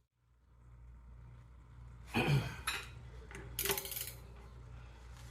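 Steel hand tools clinking as a socket and bar are set on a CV axle bolt: a pair of clanks about two seconds in and a run of lighter clinks near four seconds, over a steady low hum.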